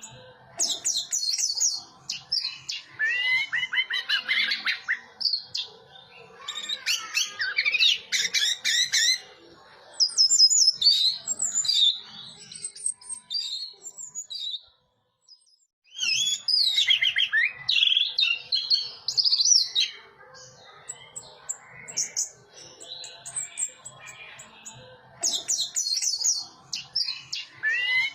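Orange-headed thrush singing: phrases a few seconds long of rapid, varied warbling and chirping notes, separated by short pauses.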